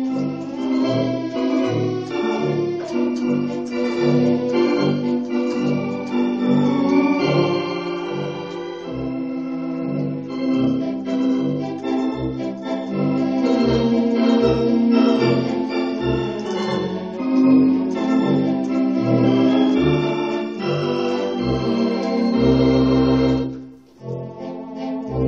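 Yamaha HS-6 Electone electronic organ played with a theatre organ sound: held chords over a steady beat of bass notes. Near the end a long low note sounds, there is a short break, and playing resumes.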